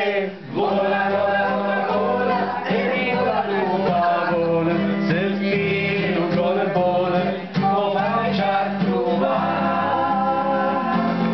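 A small group of men and women singing a song together in unison, voices raised.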